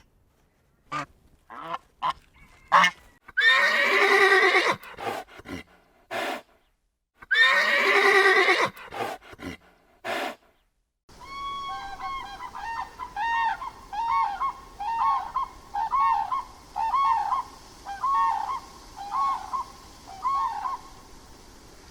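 Animal calls in two edited clips. First come loud, harsh pitched calls with dead-silent gaps between them. Then, after a cut, a steady run of short, arched, repeated calls, about one a second, over a faint hiss.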